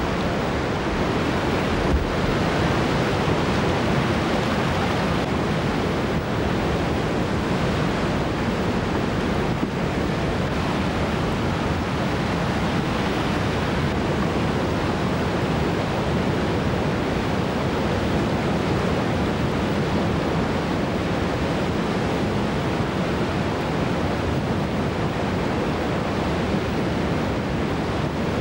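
Steady rushing of a large whitewater river rapid, water crashing over and around rocks.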